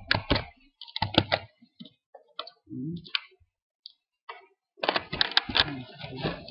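Typing on a computer keyboard: short bursts of key clicks, sparse single clicks in the middle, and a denser run of keystrokes near the end.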